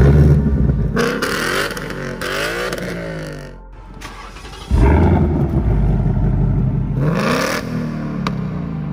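Ford 5.0L Coyote V8 revved through an X-pipe exhaust, then, after a short break about four and a half seconds in, revved again through an H-pipe exhaust, rising and falling in pitch with each blip. The X-pipe version sounds higher-pitched, the H-pipe version deeper.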